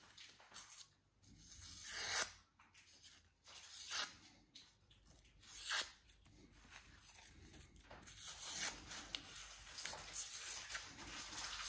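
Freshly sharpened kitchen knife slicing thin strips off a sheet of paper, a paper-cutting test of the restored edge: three crisp swishes of the blade through the paper about two seconds apart, then quicker, steadier slicing near the end.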